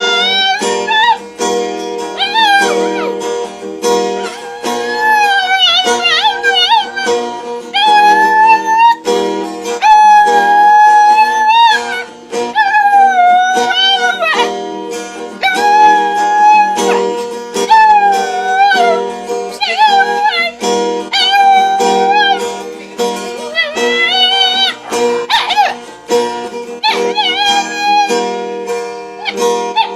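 A dog howling along to instrumental music: long wavering howls that slide up and down in pitch, one after another, over a steady accompaniment.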